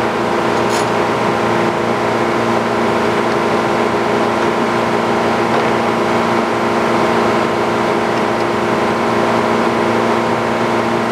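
Sawmill engine running at a steady speed, with an unchanging drone.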